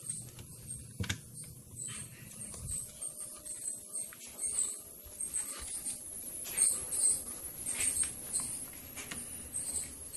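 Handling noise on a phone's microphone as it is carried: rubbing, with scattered clicks and soft taps and a sharp click about a second in.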